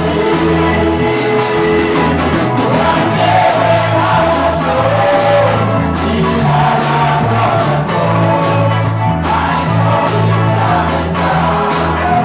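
Live worship music: a band playing a song with a steady bass line, and voices singing over it.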